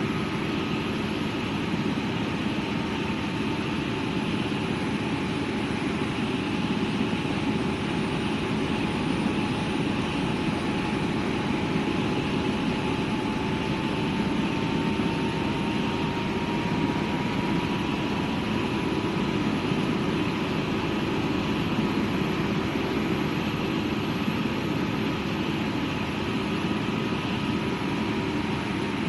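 AgustaWestland helicopter in flight: steady turbine and rotor noise, with a faint whine that rises slightly in pitch about halfway through.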